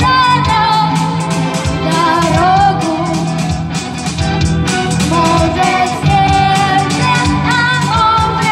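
Rock band playing live: a singer over guitar, bass and a steady drum beat.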